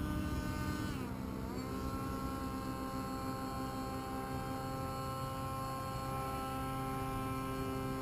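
The motor of the Oxy aircraft running with a steady pitched drone. About a second in its pitch drops as it is throttled back a little, then it holds steady at the lower speed.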